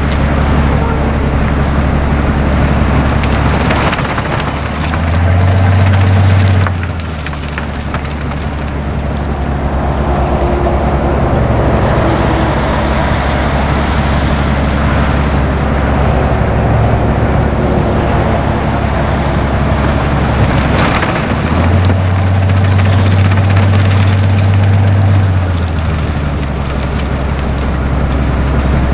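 Railway rotary snow blower running on diesel power through hard-packed snow: a steady deep engine drone under a rush of blown snow. The engine note steps up to a higher pitch twice, briefly about five seconds in and again for about four seconds a little past twenty seconds.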